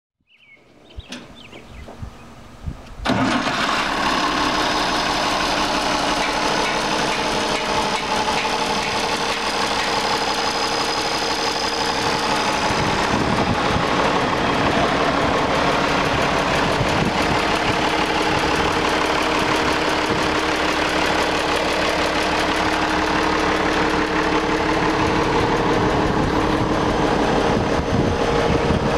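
1974 International 1066 tractor's diesel engine cranking briefly, catching about three seconds in, then running steadily.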